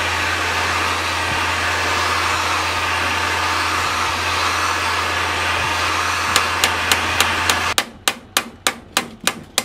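Heat gun blowing steadily on a chainsaw crankcase half, switched off about three-quarters of the way through. From about six seconds in, a hammer taps on a bearing driver in a quick run of sharp metal strikes, about three to four a second, driving the crankshaft bearing into the heated case.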